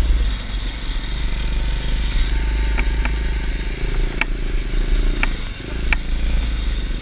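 Pit bike engine running at steady throttle, heard from a camera on the bike with wind buffeting the microphone. Several sharp clicks of rattling over the rough dirt track, the loudest about four and six seconds in, and the engine sound drops briefly about five and a half seconds in.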